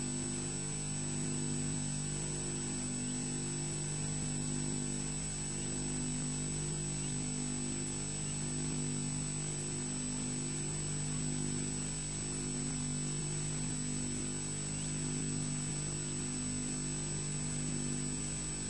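Steady electrical hum with a thin high whine above it, swelling gently in a slow, even rhythm. It is interference on a wildlife nest-camera's audio feed.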